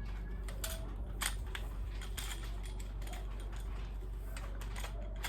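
Tripod stand's metal and plastic legs being spread open by hand: scattered sharp clicks and light rattles, the loudest about a second in, over a steady low hum.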